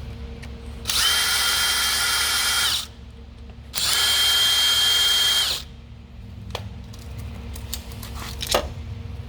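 Power drill run in two bursts of about two seconds each, its motor spinning up to a steady high whine and stopping each time. Light clicks and knocks of parts being handled follow.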